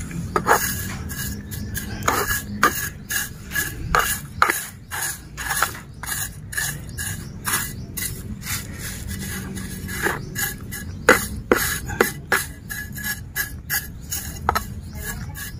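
Dry raw rice husks rustling and crackling in quick, irregular scratches as a hand scoops and presses them around a plant in a pot, over a low steady rumble.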